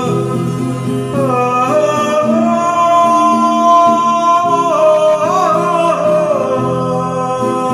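A man singing a slow melody in long held notes that slide and waver, over acoustic guitar accompaniment.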